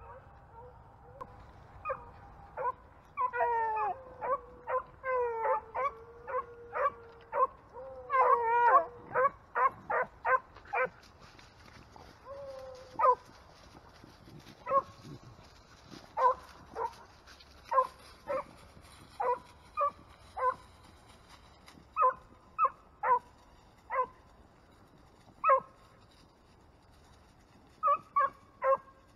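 Beagles baying on a rabbit's trail. A quick string of barks and drawn-out, wavering bawls comes first and is loudest, then single barks spaced about a second or so apart.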